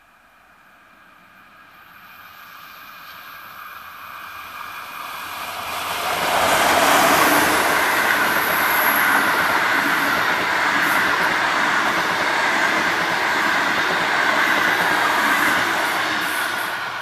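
Passenger train of older SBB coaches running past on the rails. The rolling and wheel noise grows from faint, is loud and even for about ten seconds as the coaches go by, and begins to fade near the end.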